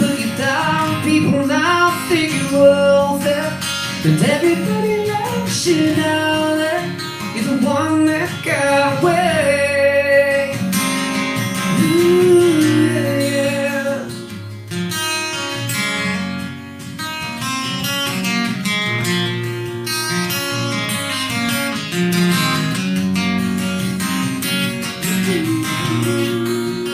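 Live acoustic guitar strumming with a wordless sung vocal gliding over it for about the first half. After that the guitar carries on strumming on its own.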